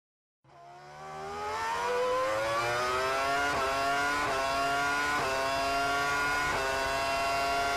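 A car engine revving up: its pitch climbs over the first few seconds and then holds high, with a few brief breaks in the note.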